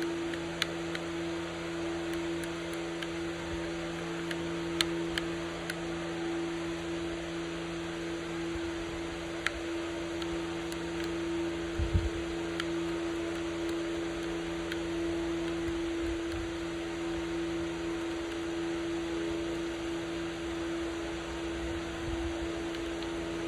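Steady machine hum, like a fan running, with a few scattered light clicks and taps of small hand work, one slightly louder knock about halfway through.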